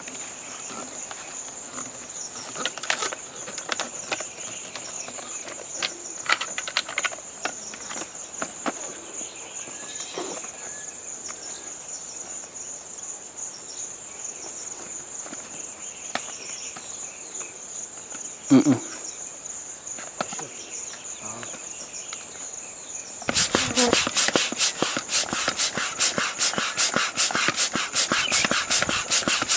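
Crickets chirring, one steady high-pitched drone. About 23 seconds in it cuts abruptly to a louder run of fast, evenly repeated strokes.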